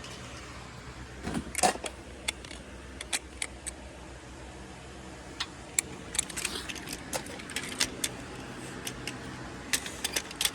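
Inside a moving car: a steady low engine and road hum with scattered light clicks and rattles at irregular intervals.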